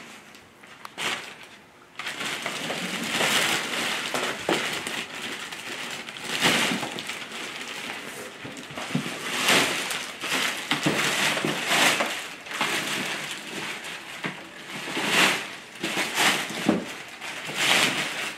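Large clear plastic wrapping crinkling and rustling in irregular swells as it is pulled off a ride-on toy car, starting about two seconds in.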